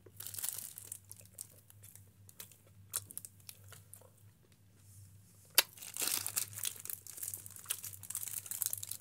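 Thin clear plastic bag crinkling as hands handle a pizza slice inside it, in irregular crackles that grow denser and louder after a sharp click a little past halfway.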